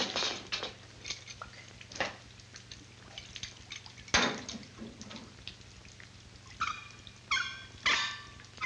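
Water trickling and dripping from a leaking pipe fitting, with a few knocks and one sharp knock about four seconds in. Near the end a man gives three short, high-pitched yelping cries.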